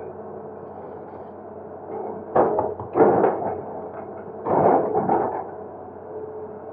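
Excavator engine running steadily, with two bouts of heavy banging and crashing, about two and a half and four and a half seconds in, as the machine breaks up concrete.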